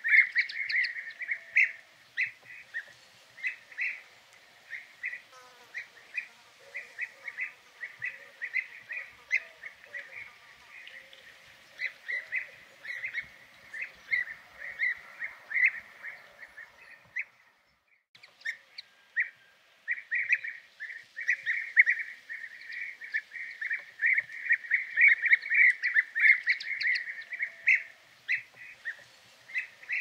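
European bee-eaters calling: a dense stream of short, rolling, liquid 'prruip' calls from several birds, overlapping at times. The calls stop briefly a little past halfway, then resume thickly.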